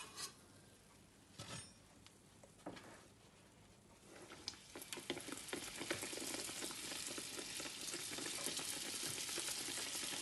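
Dough pastries frying in hot oil. After a few soft knocks, a crackling sizzle starts about four seconds in and builds to a steady fry.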